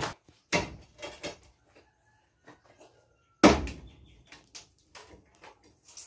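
Sharp, irregular knocks of hand-tool blows on building work. There are a few strikes in the first second and a half, one heavy blow about three and a half seconds in, then lighter scattered taps.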